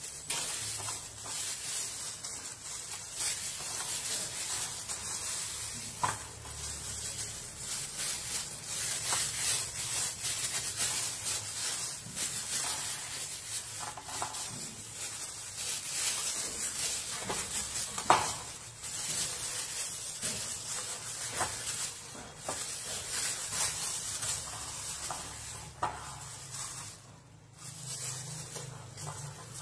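Plastic-gloved hands rubbing seasoning into the skin of a raw whole chicken on a stainless steel tray: a continuous crinkling rustle of the gloves against the skin, with a few sharp clicks, the loudest about eighteen seconds in.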